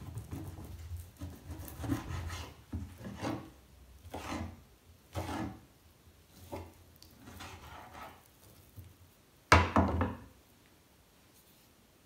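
Kitchen knife slicing raw beef on a wooden cutting board: a series of sawing strokes about a second apart, then softer handling of the slices, and a louder knock about nine and a half seconds in.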